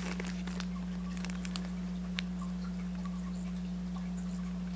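A steady low hum, with a few faint ticks and rustles of a plastic-bagged toy package being turned over in the hand.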